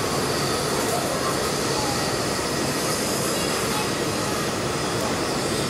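Steady hiss of escaping steam from NSW 59-class steam locomotive 5917 standing at the platform, with no chuffing beat.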